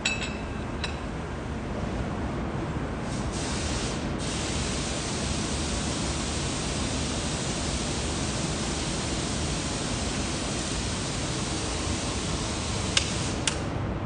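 A steady hiss that gets brighter in the top end about four seconds in, with two sharp clicks about a second before the end.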